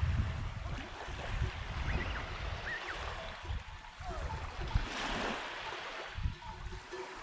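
Small waves lapping on a sandy beach, with gusts of wind buffeting the microphone in an uneven low rumble.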